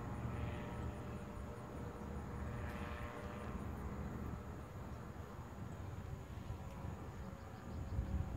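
Engine and propeller of a distant powered parachute running steadily in flight, a faint even drone over a low rumble.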